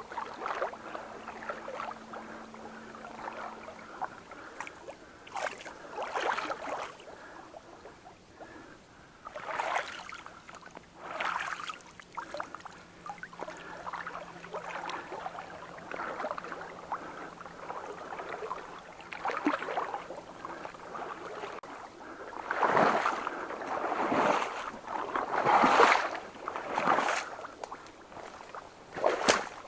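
Irregular splashing and swishing of movement through shallow water, in uneven strokes that grow louder and closer together in the last third.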